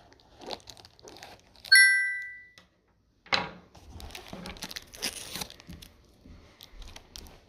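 Cardboard packaging being handled and torn open, with crinkling and tearing. About two seconds in, a single loud, bright ringing ding fades away in under a second, the loudest sound here.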